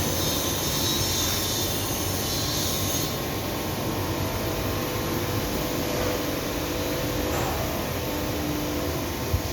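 Gas-fired steam boiler running with a steady mechanical noise and several constant tones. A high hiss sits on top for the first three seconds, and there is one sharp click near the end.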